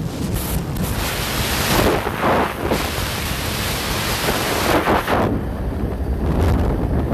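Wind blasting across a handheld phone's microphone on a moving motorcycle at highway speed: a loud, even rush of noise with stronger gusts about two seconds in and again about five seconds in.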